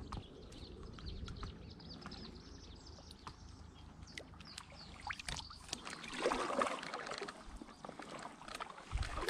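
Water splashing and trickling around an inflatable SUP board on a slow river, with small drips and clicks at first and louder splashing, as from paddle strokes, from about six seconds in.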